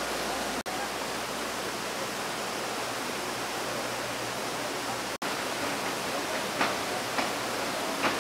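Steady rush of muddy floodwater pouring down over rocks and landslide debris. It cuts out briefly twice, and a few short knocks come in the last two seconds.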